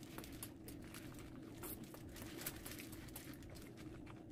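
Faint eating sounds: a shrimp burger being bitten and chewed, with its paper wrapper crinkling in the hands as irregular soft crackles, over a steady low hum.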